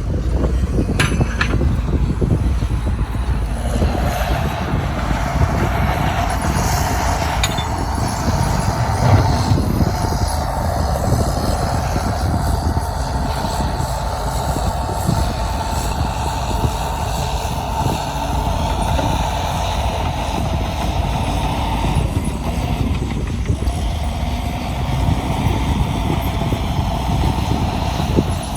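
Heavy diesel earthmoving machinery running under load: a steady low rumble with a mid-pitched drone that dips briefly about two-thirds of the way through.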